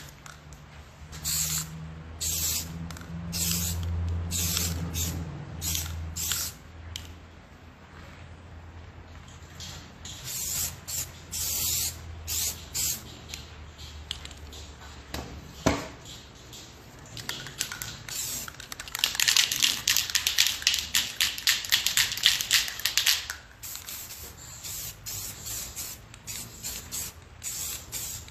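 Aerosol spray-paint can hissing in many short bursts as strokes are sprayed, with a longer run of rapid, close-set bursts about two-thirds of the way in.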